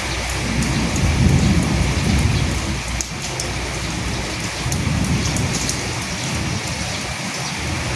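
Steady rain pattering on a surface, with sharp individual drop ticks. A low rumble swells up twice under the rain, about a second in and again about five seconds in.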